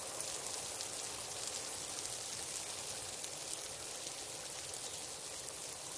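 Steady rain falling, with a dense patter of individual drop hits.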